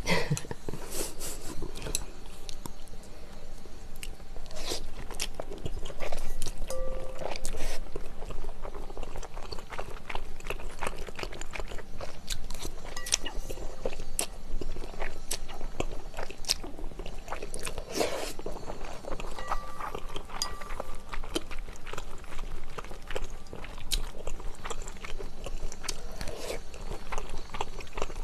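Close-miked eating of chewy Chinese glass noodles in spicy sauce: slurping, chewing and wet mouth smacks, with many short clicks throughout.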